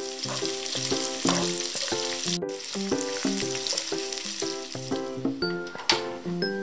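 Sliced ham sizzling as it fries in a pan, stirred with a spatula, under background music. Just before the end comes a single sharp click as the knob of a butane cassette stove is turned to light it.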